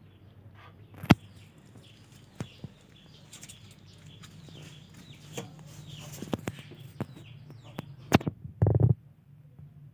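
Cats scuffling on a wooden floor: scattered rustling and sharp knocks, with a louder brief noise near the end, over a steady low hum.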